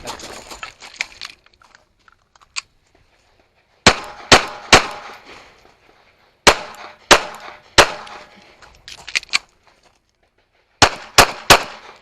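Pistol shots from a compact backup gun, fired in strings of three about half a second apart, three strings with pauses of a couple of seconds between them. Lighter clicks and clatter of handling come before the first string and between the last two.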